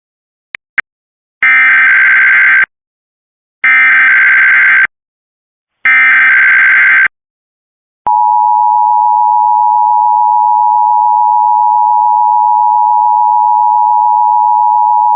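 Emergency Alert System signal opening a required weekly test. Two brief clicks come first. Then three SAME digital header bursts, each a buzzing data squawk of about a second. About eight seconds in, the steady two-tone EAS attention signal starts and holds.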